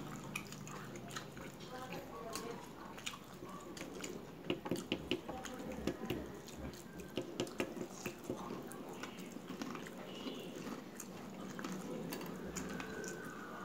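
Wet chewing and lip-smacking of people eating sauce-covered skewered street food, heard as scattered sharp mouth clicks, bunched together around the middle.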